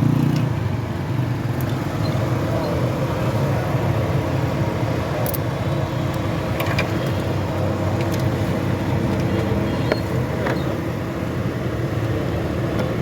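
Steady low hum of a running vehicle engine nearby, with a few faint light clicks.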